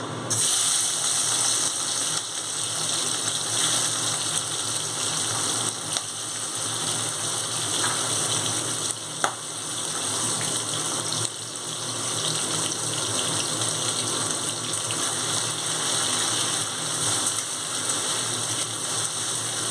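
Prawns sizzling in hot oil in a kadai, starting suddenly as they go into the pan and going on steadily as they are lightly fried. One sharp click about halfway through.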